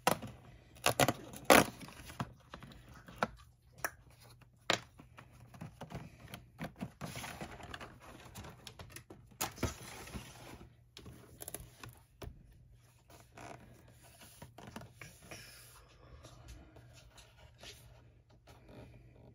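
Cardboard advent calendars being handled: sharp tearing and clicking as a perforated cardboard door is pushed open in the first couple of seconds, then rustling and scraping of a cardboard calendar box as its lid is lifted off.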